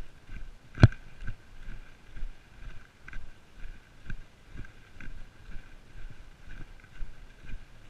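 A hiker's footsteps on a grassy trail, about two steps a second, with one sharp click about a second in.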